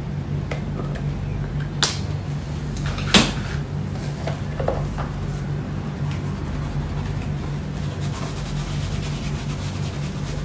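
Steady low hum of room background, with a few short sharp knocks and clicks: one just under two seconds in and the loudest a little after three seconds.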